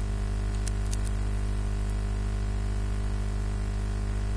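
Steady electrical mains hum with hiss on the recording line, with a few faint clicks about a second in.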